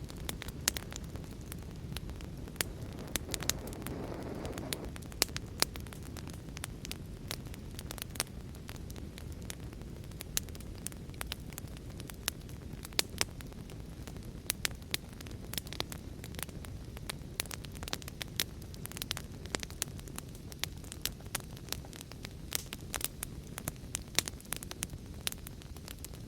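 Wood fire in a fireplace crackling, with frequent sharp pops and snaps over a steady low rush of rain; a soft swell rises and fades about four seconds in.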